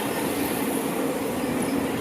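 Seibu Ikebukuro Line train passing close by, a steady loud rumble of wheels on the rails.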